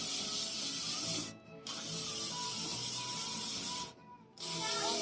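Aerosol hairspray can sprayed in long hissing bursts, stopping briefly about a second in and again near four seconds in.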